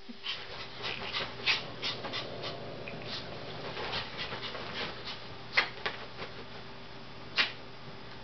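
Yorkshire terrier panting in short, quick breaths while playing, with a couple of louder sharp sounds about five and a half and seven and a half seconds in, over a faint steady hum.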